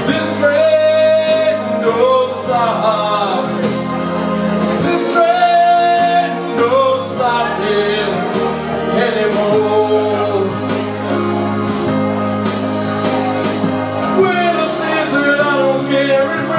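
Man singing into a microphone over instrumental backing with a steady beat, holding and sliding long notes with no clear words.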